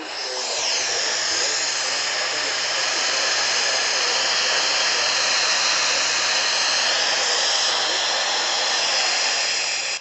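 Loud, steady FM static hiss from a Sangean portable HD Radio's speaker, tuned to 90.1 FM where no station is coming in.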